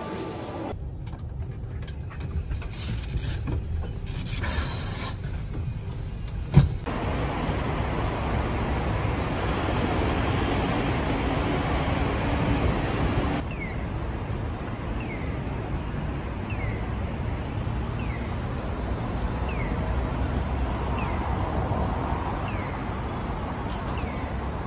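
Street and traffic ambience in several short cuts: a coach bus and road traffic running, with one sharp knock about six seconds in. Later a short chirp repeats about once a second over the steady traffic hum.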